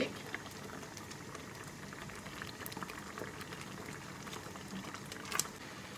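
Grated tomato and garlic sauce bubbling at a simmer in a stainless steel pot, many small pops over a steady hiss, as it cooks down after its water has partly reduced. A wooden spoon stirs through it, with one sharper click about five seconds in.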